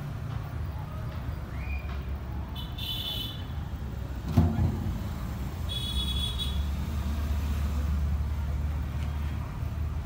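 Low steady rumble of passing motor traffic, swelling about six seconds in, with a sharp knock about four and a half seconds in and two short high-pitched tones.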